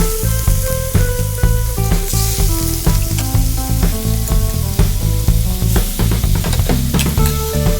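Food sizzling and frying in a hot pan, under background music with held notes and a steady pulsing bass.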